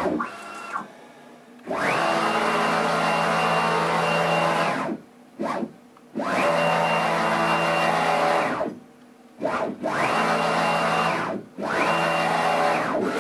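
Home-built 2×2 m CNC router's gantry making rapid back-and-forth traverses along its long axis, with no cutting: the axis drives whine, each move rising to a steady high pitch and falling again as it slows to a stop. There are several moves with short pauses between them.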